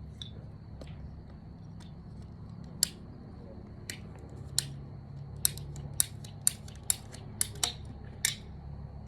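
Pipe cutters clicking shut on water-line pipe: about ten sharp clicks, a few spread out and then about two a second near the end.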